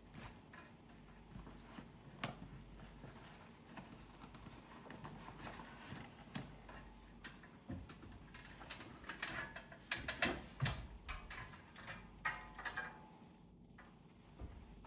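Scattered light clicks, taps and rustling from hands handling and cleaning the parts of an air conditioner, busier about ten seconds in.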